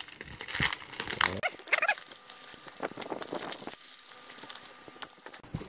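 Plastic bubble wrap crinkling and rustling as it is pulled open and unwrapped by hand, with a brief squeaky pitched sound about two seconds in.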